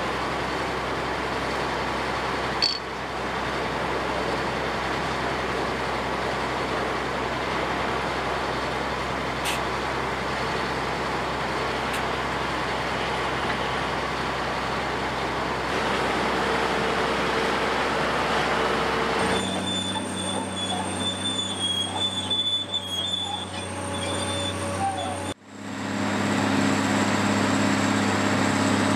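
Heavy tracked excavators' diesel engines running steadily: a low, even engine hum with a short knock about three seconds in. The sound changes abruptly twice, about two-thirds of the way through and again near the end, leaving a steadier hum with a faint high whine.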